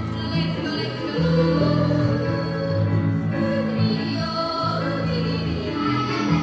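Children's choir singing a song in held notes over musical accompaniment, amplified through the hall's sound system.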